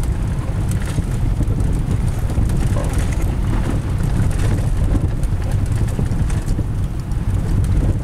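Car driving slowly along an icy, snow-packed street, heard from inside the cabin: a steady low rumble of engine and tyres.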